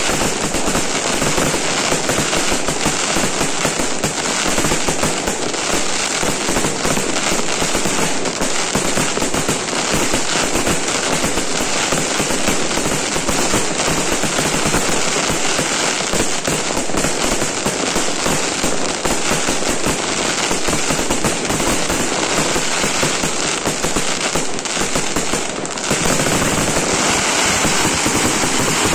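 Dense fireworks barrage: a continuous, rapid crackle of overlapping shell bursts and firecrackers with no gaps. About 25 seconds in it eases for a moment, then comes back fuller and deeper.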